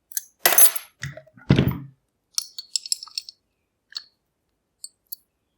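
Metal parts of a shutter lock being handled during disassembly: two heavy knocks in the first two seconds, then a quick run of small, light metallic clicks and clinks, with a few isolated ticks near the end.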